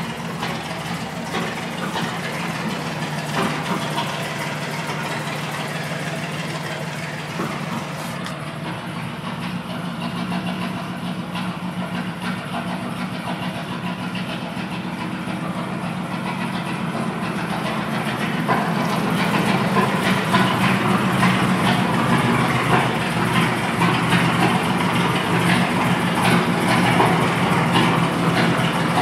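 A 1957 Mack B-model tiller ladder truck's engine idling steadily, growing louder about two-thirds of the way in.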